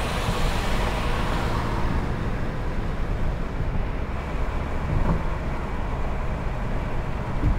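Car driving at a steady speed, heard from inside the cabin: a constant low engine hum with tyre and road noise.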